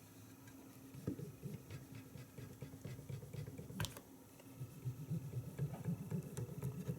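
Faint, quick rubbing and tapping of a Q-tip being pressed along the ribbon-cable pads of an instrument-cluster LCD, with one sharp click a little under four seconds in.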